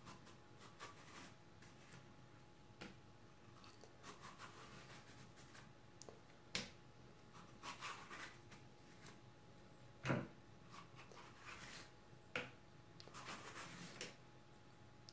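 Faint, irregular scraping strokes of a vegetable peeler shaving strips off a courgette, with a few brief light knocks, the loudest about ten seconds in.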